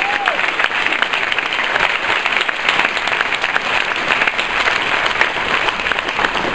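Audience applauding steadily, a dense sustained clapping from many people in a banquet hall.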